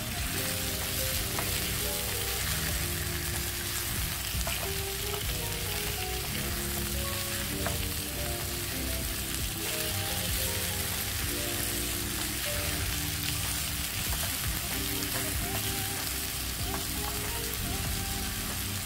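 King oyster mushroom slices and tomato wedges sizzling steadily in hot olive oil in a frying pan. Now and then silicone-tipped metal tongs click and scrape as the pieces are turned.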